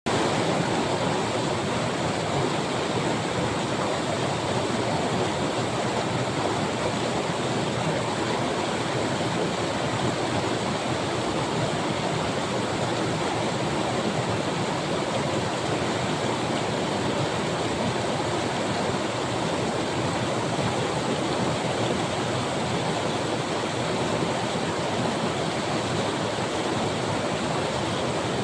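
Mountain river rushing steadily over rocks, a continuous even roar of water.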